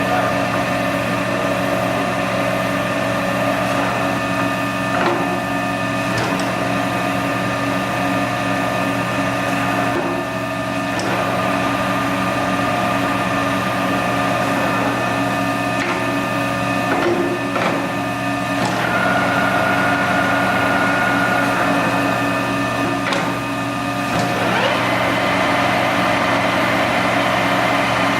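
An American 19-inch engine lathe running under power, with a steady hum and several whining tones from its geared headstock. A few sharp clicks come through, and the tone shifts twice in the second half.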